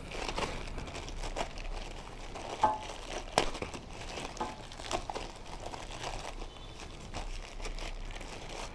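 Thin plastic packing bag crinkling and rustling as helmet speakers and their wires are worked out of it by hand, with a couple of sharper crackles about two and a half and three and a half seconds in.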